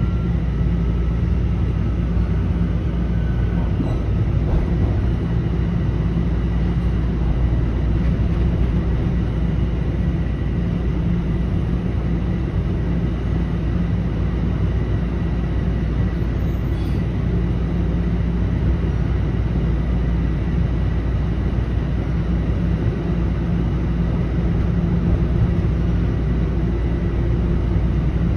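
Toronto Rocket subway train running through a tunnel, heard from inside the passenger car. A steady rumble of wheels on rail is overlaid by a faint, high, steady whine.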